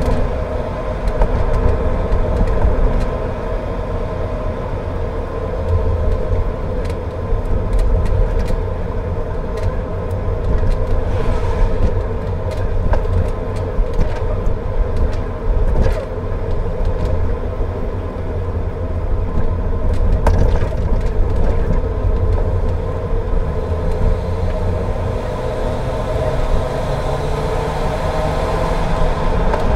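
Car driving on a wet road: a steady low rumble of engine and tyres, with scattered sharp ticks throughout.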